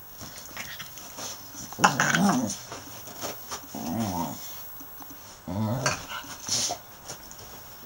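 Staffordshire bull terriers play-fighting: growls in three short bouts, with scuffling in between.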